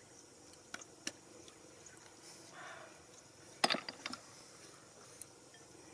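Roasted snail shells clicking and clacking as they are picked off a wire grill and handled, with a quick cluster of louder clacks a little past halfway.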